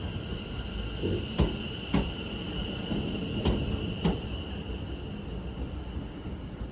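Class 730 electric multiple unit standing at the platform after arriving, giving a steady high-pitched whine that fades near the end, with a few sharp clicks and knocks over a low rumble.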